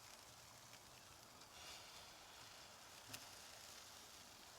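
Faint sizzling of chicken and sausages on a barbecue grill, with a single light click about three seconds in.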